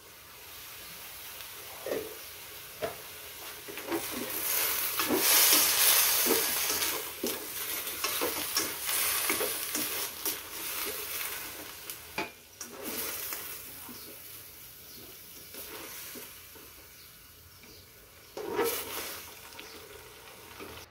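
Broccoli and carrot slices sizzling in a hot nonstick wok while being stirred, with the spatula knocking and scraping against the pan. The sizzle swells to its loudest about five seconds in, eases off, then flares briefly again near the end.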